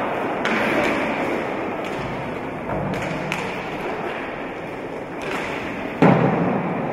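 Roller hockey play in a sports hall: a steady din of crowd noise and skate wheels on the floor, with a sharp knock about three seconds in and a loud thud about six seconds in, of sticks, ball or players against the boards.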